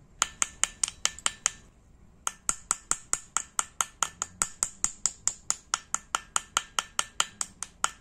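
Small hammer tapping quickly on a copper pin set in a knife handle, peening it over against a steel block: light, sharp metallic taps with a brief ring, about five a second. The taps stop briefly about a second and a half in, then carry on.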